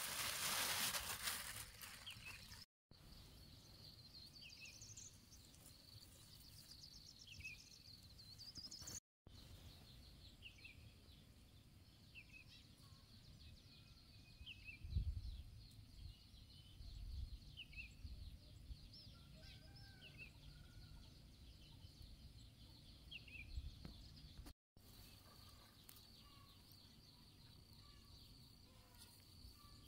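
Quiet rural ambience: small birds give short falling chirps at intervals over a faint, steady, high insect drone. A loud rustle opens it and a few soft low thumps come around the middle.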